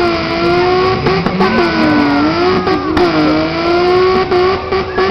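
Mazda MX-3's 1.8-litre V6 revving hard and held high while the car is bogged in deep mud, its pitch sagging and recovering a few times.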